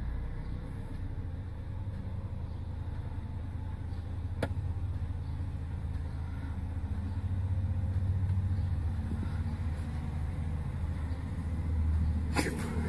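Low, steady engine rumble of idling and working vehicles, swelling a little midway and again near the end. A single sharp click comes a few seconds in, and a brief hiss near the end.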